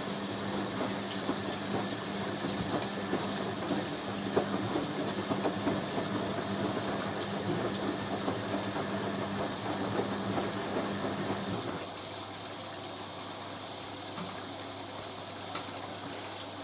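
Hoover A3060 washing machine's pump humming steadily with water running through it after the dilution rinse; about twelve seconds in the hum thins and quietens, and a single click comes near the end.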